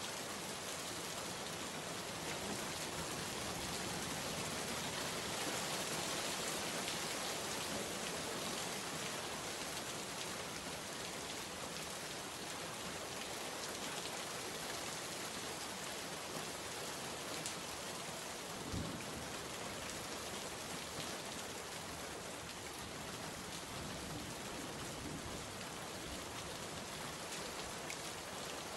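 Steady rain falling and pattering on a surface, with a few single drops ticking; a brief low thump about two-thirds of the way through.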